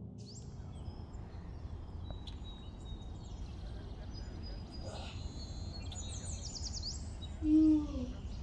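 Outdoor ambience: a steady low rumble with small birds chirping, including a quick run of repeated high sweeps. Near the end comes one short, loud, falling voice-like call.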